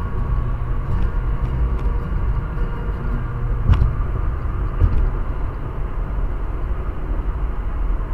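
Steady low road and tyre rumble of a car cruising at highway speed, heard inside the cabin through a dashcam microphone. Two sharp knocks a little past halfway.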